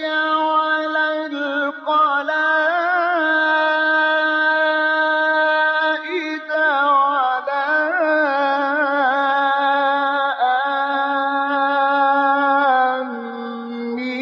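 Male Qur'an reciter chanting unaccompanied in the ornamented mujawwad style, holding long melismatic notes with a fast wavering vibrato. There is a short break for breath about six seconds in, and the voice falls lower and softer near the end.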